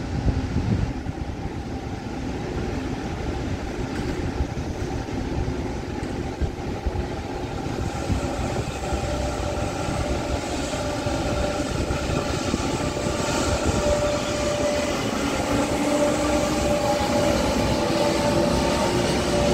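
A train running through a railway station: steady rumble and rail noise with a whine that rises slowly in pitch and grows a little louder over the second half.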